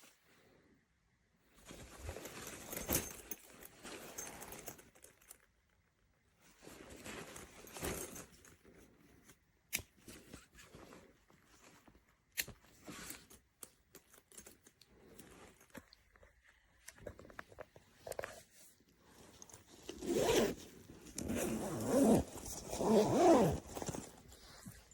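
Zipper on a fabric cabin backpack being drawn open and shut in several strokes, with a couple of sharp clicks. The bag's fabric is handled more loudly near the end.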